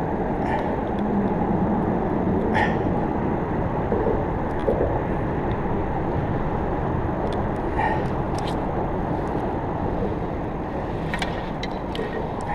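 Steady low rumble of road traffic on the bridge overhead, with a few faint clicks scattered through it.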